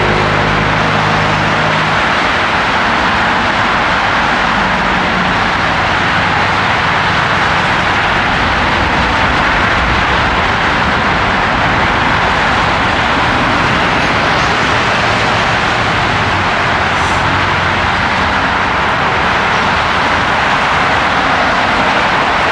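Steady rush of road traffic on a busy parkway, unbroken throughout, with a low engine hum that fades out about two seconds in.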